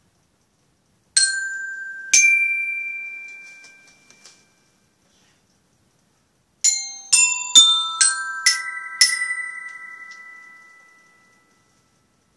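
Glockenspiel struck with a mallet: two notes about a second apart that ring on and fade, then after a pause a rising run of six notes, each left ringing.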